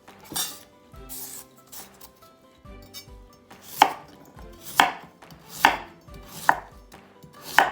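Knife chopping food on a cutting board: a few light cuts, then five heavier strokes about a second apart in the second half.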